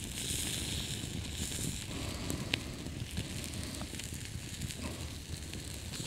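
Campfire crackling with scattered small pops and one sharp pop about two and a half seconds in, over a steady hiss of burgers sizzling on a small wire grill above the flames.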